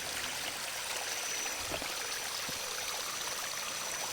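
Water from a small waterfall or stream running steadily, with a faint steady high-pitched tone and a couple of faint knocks.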